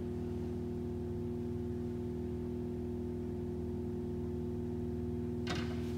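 A steady electrical hum made of many even tones, with a brief sharp noise about five and a half seconds in.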